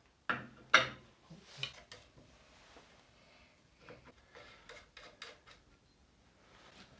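Sparse clicks and knocks of parts being handled on a workshop bench, two sharper ones in the first second, then a run of fainter taps about four to five and a half seconds in.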